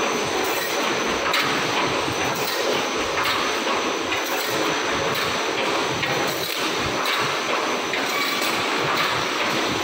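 Automatic wire mesh welding machine running, a steady loud mechanical clatter with a repeating knock as it feeds and welds the steel wire grid.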